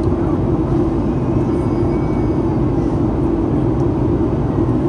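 Steady cabin drone of a Boeing 737-800 in flight, a mix of CFM56-7B turbofan and airflow noise heard from a window seat. The drone is low and even throughout.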